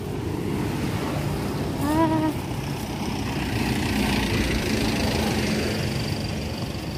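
Steady street traffic noise, with a short pitched sound about two seconds in.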